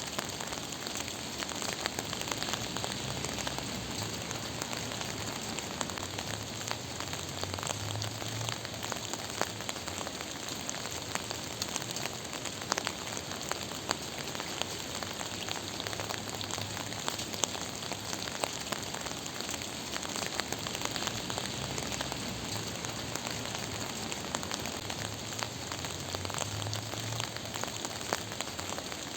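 Steady gentle rain falling, with a dense patter of individual drops over an even hiss and a faint low rumble underneath.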